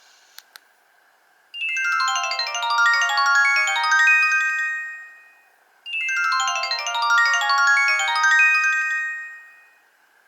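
Nokia 1800 mobile phone playing one of its built-in ringtones: a fast cascade of many overlapping bright notes, played twice, each time starting suddenly and fading out after about four seconds. Two short clicks come just before the first play.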